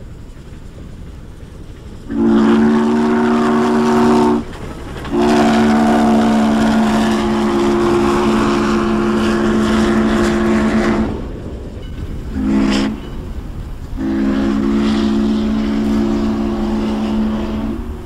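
Three-chime steam whistle of a Norfolk & Western J class 4-8-4 locomotive, sounding a chord with steam hiss. It blows long, long, short, long: the standard grade-crossing signal. A low rumble runs underneath.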